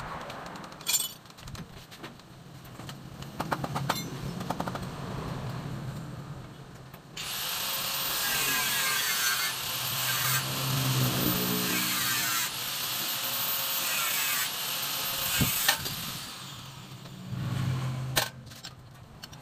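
Handheld electric power tool run in four bursts of a couple of seconds each, its motor spinning up and winding down every time. Before it come a few scattered clicks and knocks.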